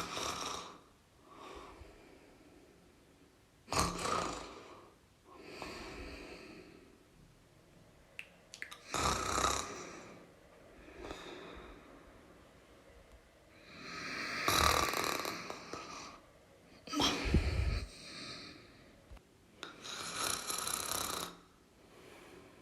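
A person snoring: six loud snores at uneven gaps of about three to five seconds, with quieter breaths between them.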